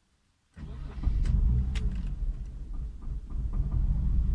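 Mercedes-Benz W124 engine cranking briefly and catching about half a second in, then running with a steady low rumble. It starts readily now that the clogged fuel-tank strainer has been cleaned.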